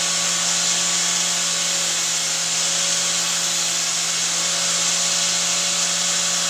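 A machine running steadily: a constant motor hum with a hiss over it, unchanging throughout.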